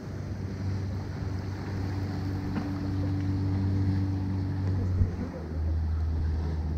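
Outboard motor of a small boat running past close by, a steady low drone whose pitch steps down slightly about five seconds in.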